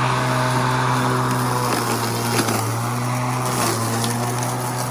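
Sun Joe 24V-X2-17LM 48-volt cordless electric lawn mower running: a steady low motor hum under the rush of air from the spinning blade, with a few faint ticks.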